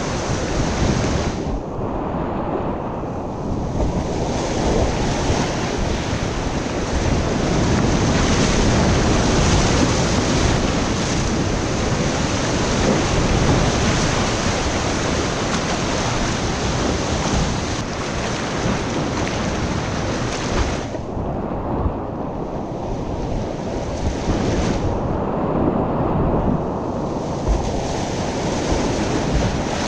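Whitewater rapids rushing steadily, heard close up through an action camera's microphone. The sound turns muffled for a couple of seconds about two seconds in, and twice more after twenty seconds.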